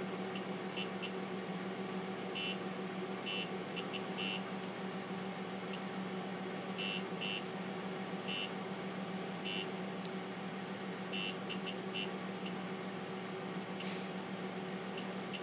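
TRS-80 Model 16B computer running with a steady low hum, while short high-pitched buzzer chirps come in irregular clusters, a dozen or more of them. The chirps are the HxC floppy emulator's step-sound buzzer, ticking as the drive heads seek while the MBasic installation disk is read.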